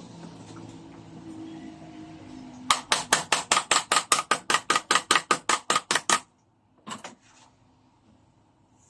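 Hammer tapping in a fast, even run of about seven blows a second for some three and a half seconds, followed by two more taps.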